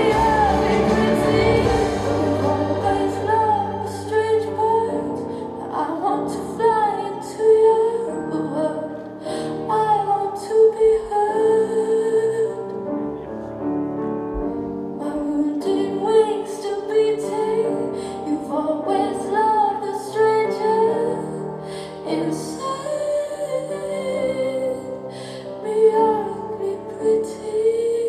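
Recorded song played for a dance routine: a woman singing a slow melody over instrumental accompaniment.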